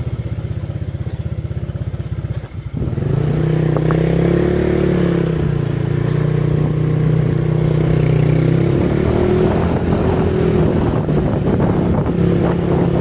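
A motorcycle engine runs steadily, then about two and a half seconds in it pulls away and rides on. Its pitch rises and falls with the throttle and speed.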